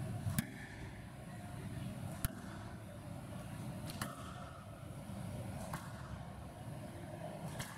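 Squash ball being hit back and forth in a rally: five sharp cracks, one about every two seconds, over steady background noise.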